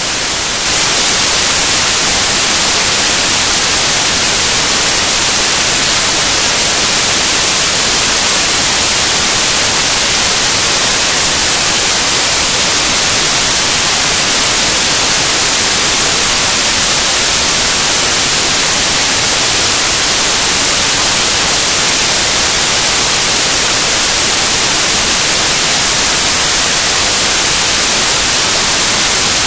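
Loud, steady static-like hiss that starts abruptly and does not change.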